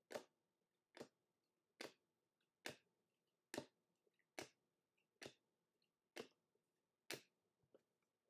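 Faint, sharp clicks at a steady pace of a little more than one a second: trading cards being flipped off a stack one at a time.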